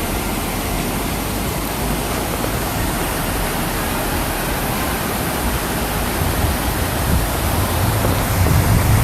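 Gordale Beck's waterfall rushing in a steady, loud roar of falling water, flowing strongly. A low rumble swells in the last few seconds.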